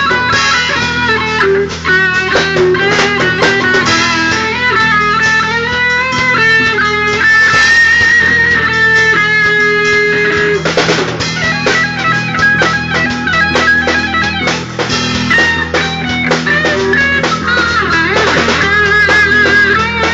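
Band playing rock music: an electric guitar melody line over bass and drum kit, without singing.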